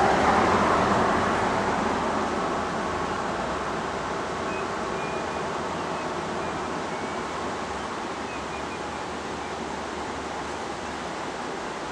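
Road traffic: a passing vehicle's rushing noise fades away over the first few seconds and leaves a steady, even rushing background.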